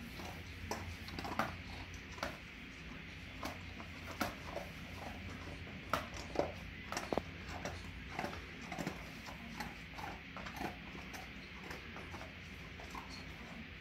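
A gloved hand kneading and squeezing cornstarch-and-lotion cloud dough in a plastic bowl: irregular soft squishes and knocks as the dough is pressed and the bowl is handled.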